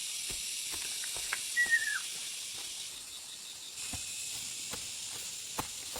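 Steady high-pitched hiss of forest background. About a second and a half in there is one short whistled call that falls in pitch, and a few faint clicks are scattered through.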